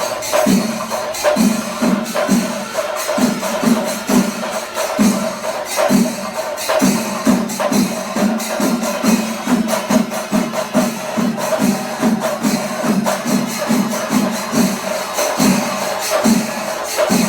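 Percussion-led music with a steady, even drumbeat of about two to three strokes a second, jingling metal and a sustained tone held above it.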